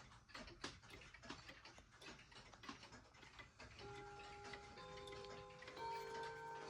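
Faint ticking of a 1975 Jauch triple-chime wall clock's movement. About four seconds in, chime notes begin: three notes about a second apart, each left ringing on.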